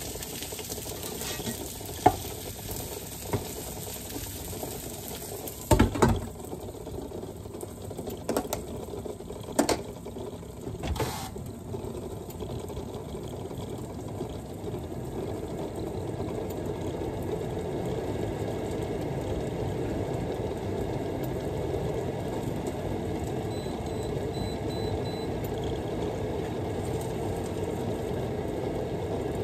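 Breaded fish fillets sizzling in a covered frying pan and a saucepan of water boiling on an induction hob. A few sharp clinks and knocks of cookware come in the first dozen seconds, the loudest about six seconds in. After that a steady low rushing noise grows louder through the second half.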